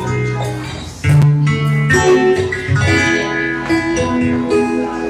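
Guitar music: plucked notes and chords ringing one after another over sustained low notes.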